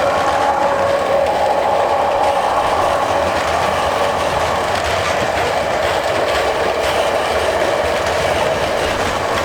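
VIA Rail passenger train rolling past at speed, its wheels running steadily over the rails with a clickety-clack.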